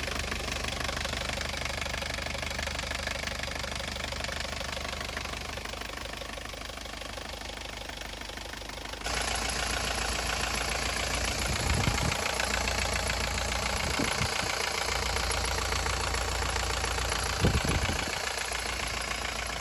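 Mercedes-Benz W115 240D's four-cylinder diesel engine idling with diesel clatter, run to check the newly resealed heater valve for coolant leaks. The sound changes abruptly about nine seconds in, becoming louder and deeper.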